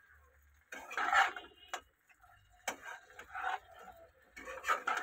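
Metal spatula scraping and knocking against a pan while stirring fried vegetables into spices, in irregular strokes with short pauses between them.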